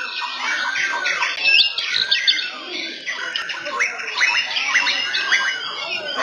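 Several caged white-rumped shamas (murai batu) singing at once: a dense, continuous tangle of overlapping quick whistles, chirps and notes that glide up and down.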